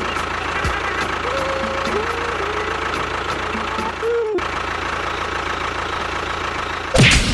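A small motor-driven machine running steadily with a constant whine, typical of a model vehicle's motor. It drops out briefly a little past halfway, and a sudden loud burst comes near the end.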